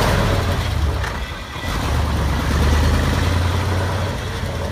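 Diesel engine of a vintage concrete mixer truck running with a steady low hum, dipping briefly about a second and a half in.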